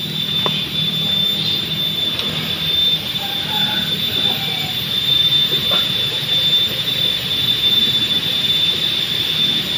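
Cicadas droning in one steady, shrill, high-pitched tone that holds unbroken throughout.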